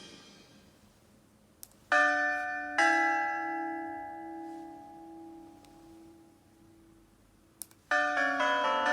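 Recorded bell sound effects played back by a small MP3 sound-effect player. After a faint click, two bell strikes about a second apart ring and slowly fade. After another click near the end, a quick peal of church bells in many notes begins.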